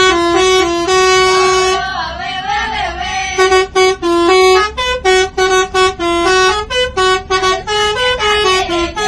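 Indonesian 'telolet' bus horn, a set of musical air horns, playing a tune. It holds a few longer notes, then runs through quick short staccato notes that jump up and down in pitch.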